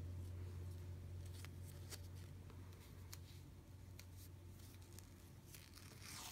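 Faint crinkles and small ticks of athletic tape being handled and laid around a thumb, over a low steady hum.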